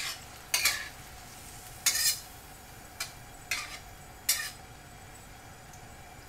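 Metal ladle stirring and scraping against a stainless steel wok of tomatoes in sauce, about five sharp scrapes and clinks in the first four and a half seconds, then only a faint steady sizzle of the simmering sauce.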